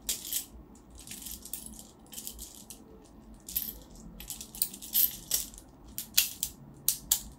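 Plastic airsoft BBs being pushed into a Glock-style gas blowback pistol magazine with a handheld tube BB loader: irregular sharp clicks and rattles as the BBs feed in.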